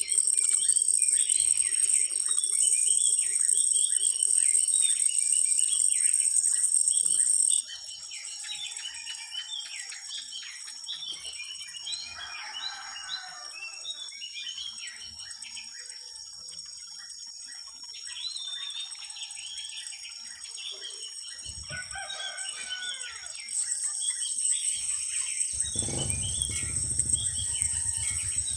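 Outdoor ambience: insects keep up a steady, shrill high-pitched drone while birds chirp over it. The drone is loud at first, drops back for much of the middle and comes up again near the end, and a low rumble joins in the last few seconds.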